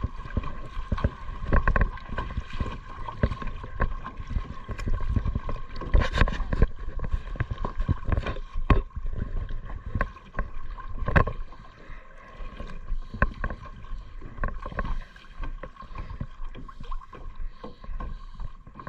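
Kayak paddles dipping and splashing in lake water at an irregular rhythm, with water sloshing against the hull. A faint steady whine runs underneath.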